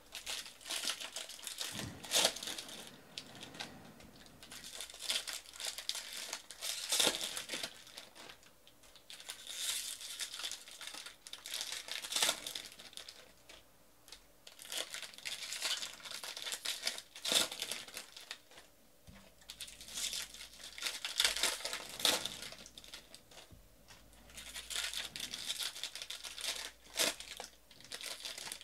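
Foil baseball card pack wrappers crinkling and tearing as packs are ripped open by hand, in bursts every few seconds.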